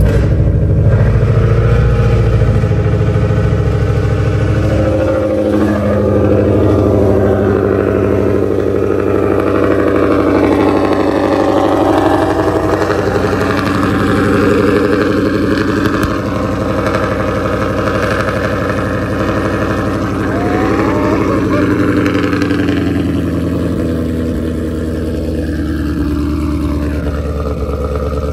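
Ford Mustang GT's 5.0 L Coyote V8 idling steadily just after a cold start, heard through long-tube headers with no catalytic converters, an X-pipe, deleted resonators and Roush mufflers. The idle eases a little quieter near the end.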